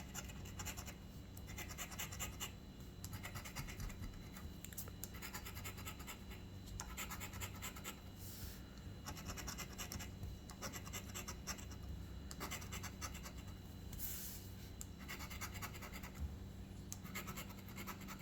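A coin or scraper scratching the latex coating off an instant lottery scratch ticket, in quick rasping strokes that come in runs of a second or two with short pauses between them.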